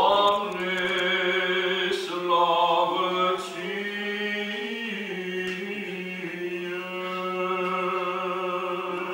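Orthodox church chanting from a Vespers service: slow sung lines held largely on one steady pitch, with the melody shifting only slightly.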